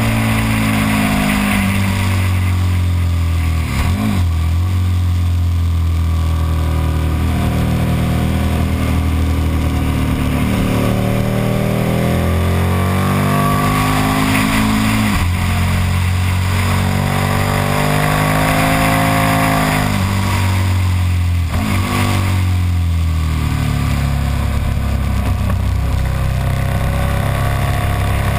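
KTM Super Duke's V-twin engine on track, pulling hard through the revs and dropping pitch as the rider shuts off and slows for corners. This rise and fall comes several times, with sharp breaks in the engine note about 4, 15 and 21 seconds in.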